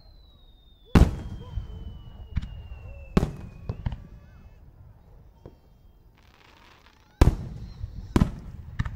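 Aerial firework shells bursting with sharp booms and rumbling echoes, the loudest about a second in and about seven seconds in, with smaller bangs between. A thin whistle falls slowly in pitch over the first three seconds, and a short crackling fizz comes just before the later booms.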